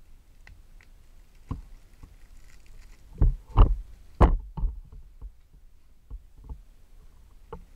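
Handling noise from squishy toys in clear plastic bags being set down on a pile: a string of soft knocks and bumps with light rustling of the plastic wrap, loudest in a cluster about midway.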